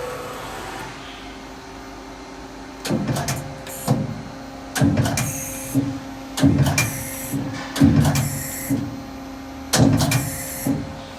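Doosan Lynx 300 CNC turning center running, a steady hum under a string of short motor-driven mechanical movements, about one a second from a few seconds in.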